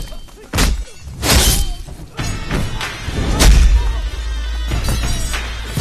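Action-film fight soundtrack: background score with about four heavy punch-and-hit impact effects in the first half, then a low rumble held under the music.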